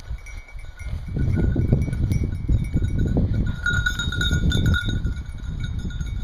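Bells on running hunting dogs' collars tinkling steadily, clearest a little past the middle, over a loud low rumble of wind on the microphone.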